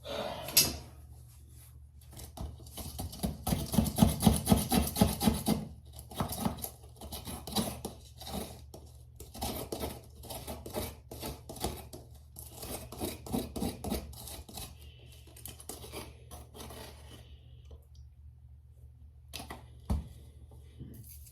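Close rubbing and scraping sounds: a quick run of strokes a few seconds in, then scattered rubs, and a single sharp knock near the end.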